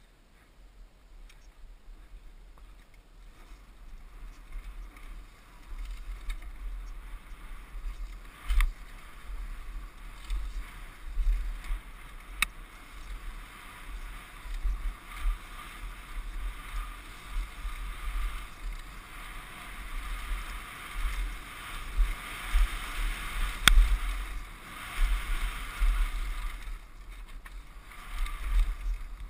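Mountain bike ridden down a dirt woodland trail, heard from a helmet camera: wind noise over the microphone and tyres rolling on dirt, starting quiet and growing louder over the first several seconds as speed builds. Frequent thumps of the bike over bumps, with a few sharp clicks.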